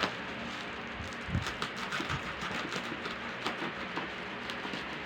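Plastic parcel packaging being handled and unwrapped by hand, rustling and crinkling with many small irregular crackles and clicks.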